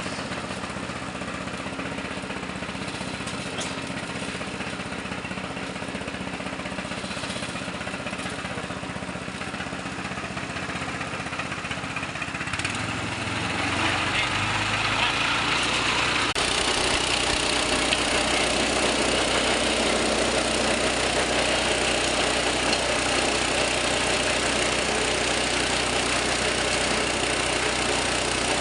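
Engine-driven grinding machine running steadily; about halfway through it grows louder and brighter and stays at that higher level.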